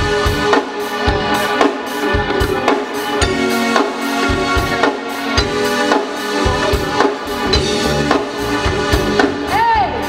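Live soul band playing the opening of a song, with the drum kit keeping a steady beat of about two hits a second under sustained band chords.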